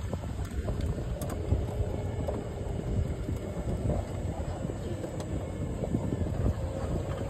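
Low, fluctuating rumble of a moving open-sided cart riding over a concrete path, with wind buffeting the microphone.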